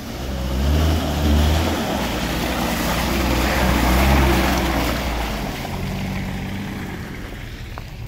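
A 4x4 off-road vehicle's engine revving as it pushes through mud and water, its revs rising and falling a few times. A rushing, splashing noise from the wheels grows, peaks about four seconds in, then fades.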